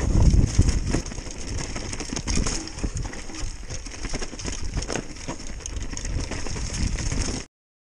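Mountain bike riding down a dry, leaf-strewn dirt trail: tyre rumble over the ground with frequent small knocks and rattles from the bike, and a steady high hiss. It cuts off suddenly near the end.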